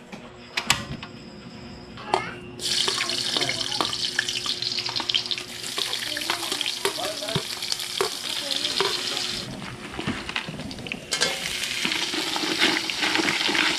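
Sliced shallots and ginger hitting hot oil in a steel wok, sizzling loudly from about two and a half seconds in, with a spoon clinking against the plate and pan. The sizzle eases briefly, then comes back strong about eleven seconds in as chopped kagang crab goes into the wok.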